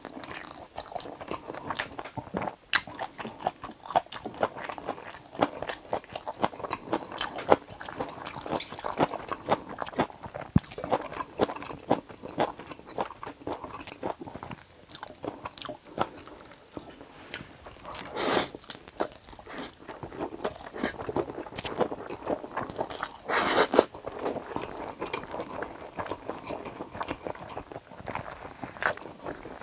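Close-miked eating of Chapagetti instant black-bean noodles with fried eggs: steady chewing full of small, irregular wet clicks, with two louder, drawn-out sounds a little past the middle.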